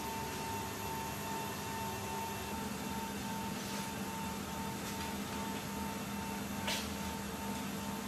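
Steady hum and high whine of running aircraft machinery heard from a C-17's open cargo hold, with a light click about seven seconds in.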